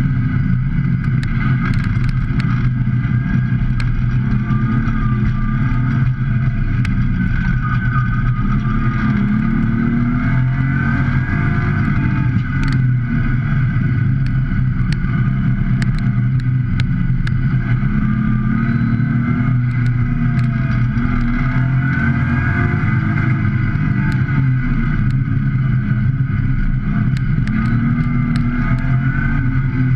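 Track-prepped BMW E30's engine heard from inside the cabin during a hard autocross run. The revs climb and drop again every few seconds as the car accelerates and slows between the cones.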